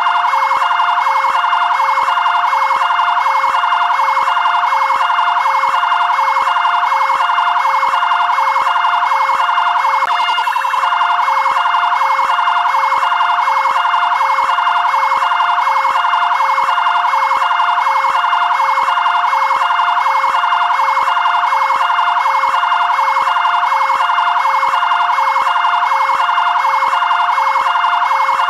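Fire brigade area command vehicle siren sounding continuously in a fast two-tone pattern, two pitches alternating in an even, rapid repeat.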